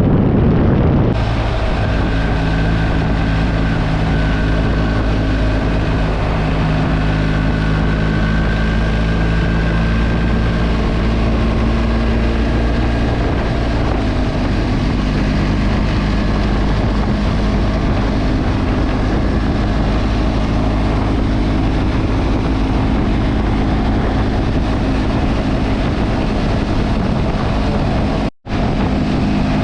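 Motorcycle engine running steadily at cruising speed, with wind rushing over the microphone. The engine note shifts slightly about halfway through, and the sound cuts out for an instant near the end.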